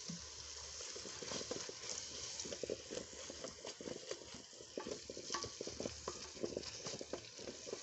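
Wooden spoon stirring chopped vegetables frying in oil in a metal pot: irregular short scrapes and knocks of the spoon against the pot over a light sizzle.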